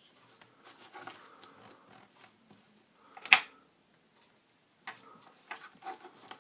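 Small clicks and taps of an 18650 cell, battery holder and test leads being handled and adjusted, with one sharp, loud click about three seconds in.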